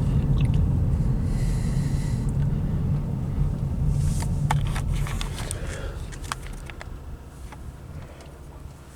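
Low road and drivetrain rumble inside the cabin of a moving 2013 Ford Fusion Hybrid, fading over the second half, with a few sharp clicks around the middle.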